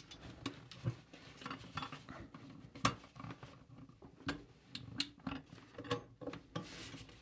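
Steel parts of a Victor Out of Sight scissor-jaw mole trap clicking and clanking as it is handled and set, with irregular sharp metal taps. The sharpest knocks come about three and four seconds in.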